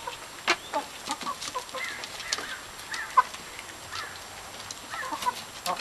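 Several hens clucking softly now and then as they feed, in short calls scattered throughout, with a few sharp ticks among them.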